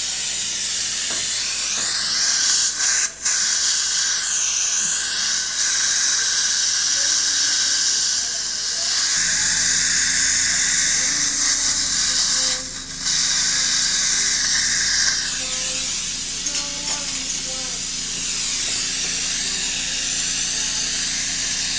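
Dental suction hissing steadily, cutting out for a moment twice.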